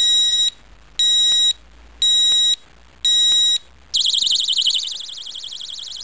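Xena disc-lock alarm going off: half-second high-pitched beeps, one a second, then about four seconds in it switches to a continuous warbling siren. It is the alarm's warning beeps followed by its full 110-decibel alarm.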